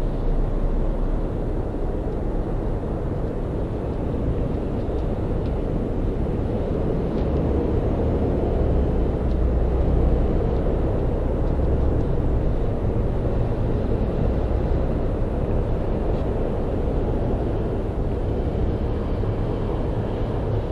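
Distant steady roar of an Airbus A380's four Rolls-Royce Trent 900 engines at cruise altitude, heard from the ground as a low rumble that swells slightly near the middle.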